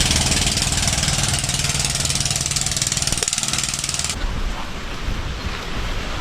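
A small engine running fast and steadily, with a rapid buzzing pulse. It cuts in abruptly, and about four seconds in its bright upper part drops away while it runs on more dully.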